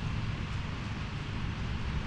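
Storm wind gusting on the microphone: uneven low buffeting under a steady rushing hiss.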